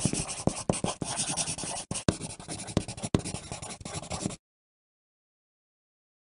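Pencil writing on paper: a steady run of quick scratching strokes with short taps. It stops abruptly about four and a half seconds in.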